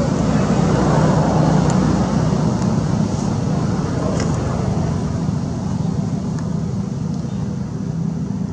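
Steady low rumbling noise with a few faint ticks.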